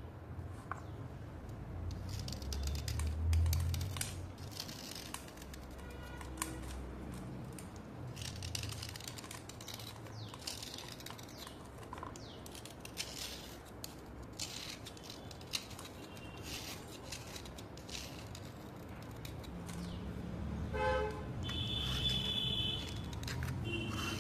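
A small blade scraping along a wet white slate chip in repeated irregular strokes, each a short rasp as shavings peel off the soft stone. Near the end a brief high-pitched tone sounds a few times.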